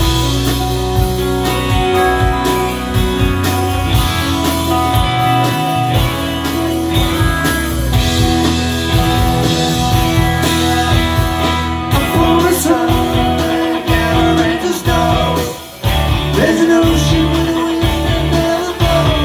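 Live rock band playing: electric guitars and bass guitar over drums, with singing. The music briefly drops out about three-quarters of the way through, then comes back in.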